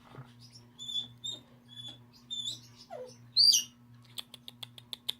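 African grey parrots whistling and chirping: a few short high chirps, a squeak sliding downward, then one loud whistle. Near the end comes a quick run of clicks, about eight a second.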